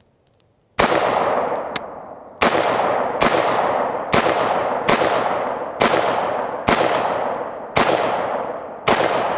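Nine shots from an LWRC M6IC-DI, a direct-impingement 5.56 mm AR-15 carbine, fired about a second apart, with a longer gap after the first. Each shot leaves a long echoing tail.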